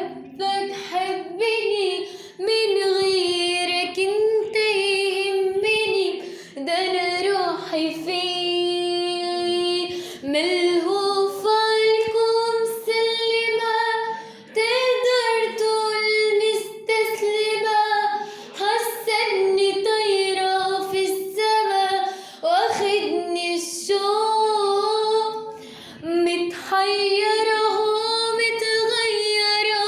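A young female voice singing an Arabic song solo, in phrases with short breaks for breath and some long held notes.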